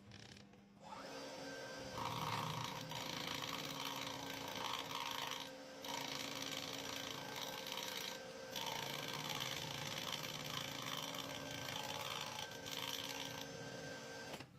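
Machine tool running steadily with a continuous scraping, hissing cutting noise over a constant hum, dropping out briefly twice.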